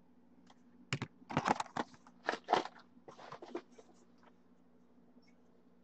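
Card packaging and hard plastic card cases handled: a cluster of crinkling, crunching and clicking noises starting about a second in and lasting about three seconds.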